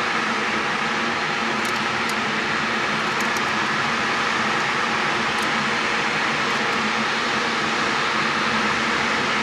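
Steam locomotive venting a large volume of steam, a loud steady hiss that does not let up.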